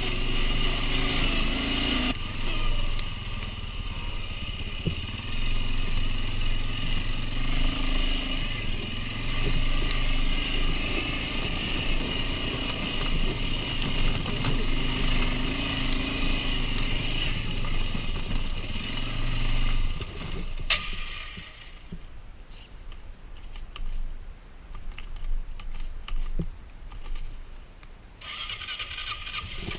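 Quad bike (ATV) engine running at low, varying revs. It drops away after a sharp click about two-thirds of the way in and picks up again near the end.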